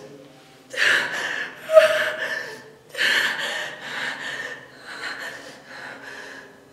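A woman crying in acted distress: three loud, gasping sobs in the first four seconds, then quieter, shorter sobbing breaths.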